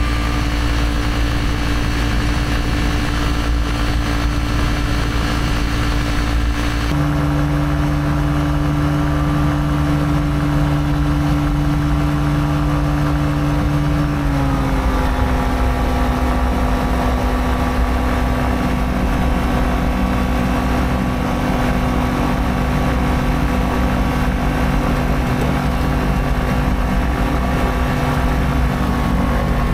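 Rotax 503 two-stroke engine and propeller of a Challenger 2 ultralight running steadily at taxi power. About halfway through, the engine note dips slightly and holds there.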